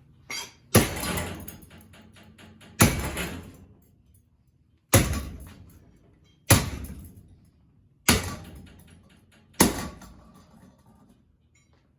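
A ceiling fan being smashed: six heavy blows, about one every one and a half to two seconds, each followed by about a second of fading rattle.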